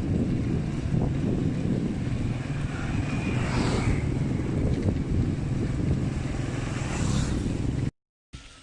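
Wind buffeting the microphone while riding a bicycle, a dense low rumble that cuts off abruptly near the end.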